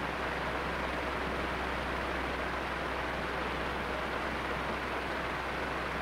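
Electric fan running steadily on its third speed setting: an even rush of moving air with a low motor hum underneath.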